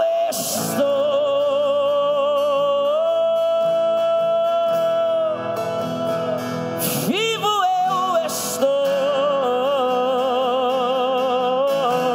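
Live gospel music: a singer holds long, wavering high notes without words over a band's backing, with a quick sliding vocal run about seven seconds in.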